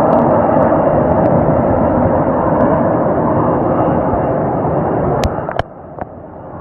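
Hurricane wind blowing hard as a loud, steady rush of storm noise, with a couple of sharp clicks about five seconds in, after which the noise drops off suddenly.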